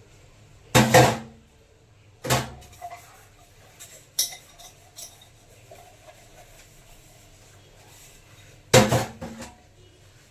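Kitchen food container knocking and clattering as it is handled to be scrubbed: three loud clattering knocks, about one second in, two seconds in and near the end, with lighter clicks in between.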